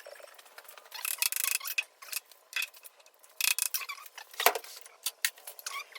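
Metal tooling being handled: scattered metallic clinks and rattles, with one sharp knock about four and a half seconds in.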